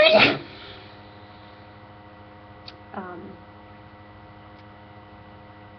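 A woman with a cold sneezing once, sharply, right at the start, after which a faint short vocal sound follows about three seconds in, over a steady electrical hum.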